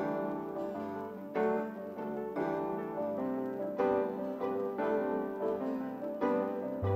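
Background music: a gentle piano tune with notes changing about every half second.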